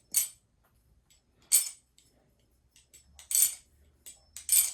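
Balisong (butterfly knife) being flipped through fan moves, its metal handles clacking shut: four sharp metallic clacks with smaller ticks between, each with a high ring.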